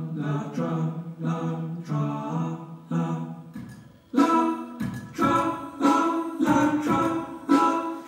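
Vocal music: sustained sung notes in a steady pulse of about two beats a second, growing louder and fuller about four seconds in.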